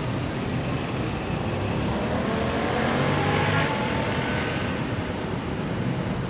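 Steady road traffic noise on a busy street, swelling about three seconds in as a vehicle passes.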